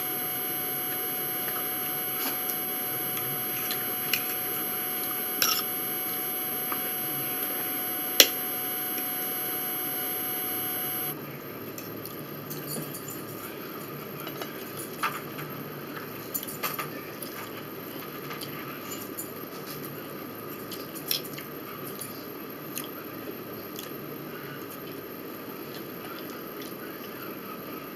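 Close-up eating sounds: chewing, with scattered sharp clicks of forks on plates. A steady electrical hum with a few fixed tones runs underneath and cuts off suddenly about eleven seconds in.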